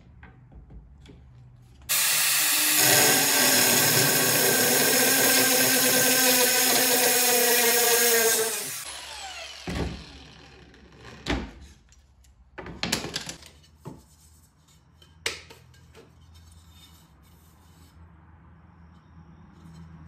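Cordless angle grinder boring a hole through a tile. It starts about two seconds in, runs steadily under load for about seven seconds, then winds down. A few knocks and scrapes follow.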